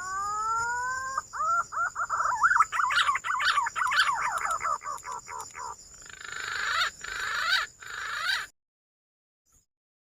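Green pigeon (punai) song. It opens with a long rising whistle, then a fast run of warbling whistled notes, then harsher falling notes, and cuts off suddenly about eight and a half seconds in.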